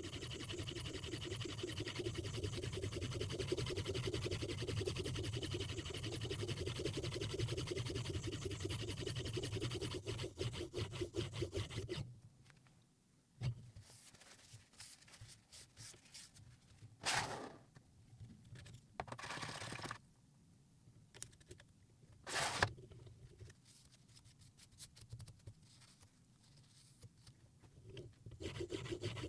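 A 4000-grit semi-natural sharpening stone being stroked rapidly back and forth along a Mora Bahco knife edge in a guided sharpening system, scraping steadily. The scraping stops about twelve seconds in, leaving a quiet stretch with a few short noises, and starts again near the end.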